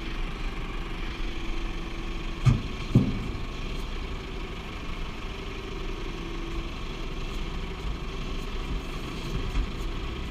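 Scania hooklift truck's diesel engine idling steadily, with two loud thumps about two and a half and three seconds in.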